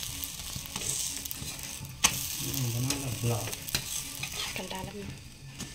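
Aloo paratha frying on a tawa, with a steady sizzle and a few sharp clicks and scrapes of a steel spatula against the pan.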